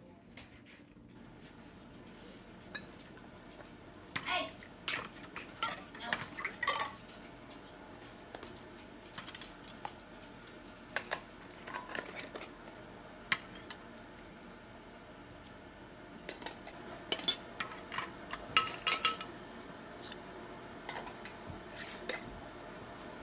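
Metal canning lids and screw bands clinking on glass mason jars as the lids are set in place and the bands screwed on: scattered clusters of sharp clicks and light metallic rings.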